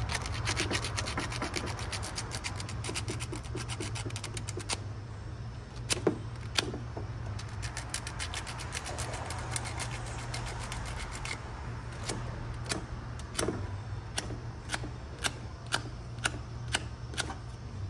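Copper power cable being sanded by hand to clean it for good electrical contact. Quick, rapid scrubbing strokes for about the first five seconds, then slower separate strokes about one or two a second toward the end, over a steady low hum.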